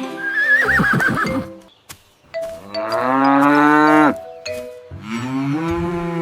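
A horse whinnies in the first second and a half, then a cow moos twice in two long calls, the second one running on past the end.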